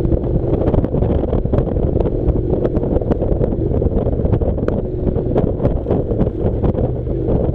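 Honda NC700's parallel-twin engine running as the motorcycle climbs a gravel track, heavily buffeted by wind on the microphone. Scattered sharp clicks from stones and gravel under the tyres.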